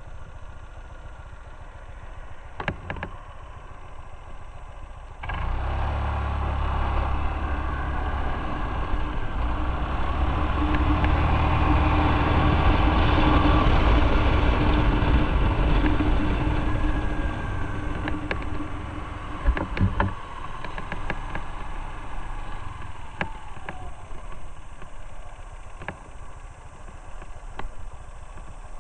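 Motorcycle engine idling, then pulling away sharply about five seconds in. Engine and wind noise build as it gathers speed, then ease off, and the engine drops back sharply about twenty seconds in as the throttle is closed and it slows.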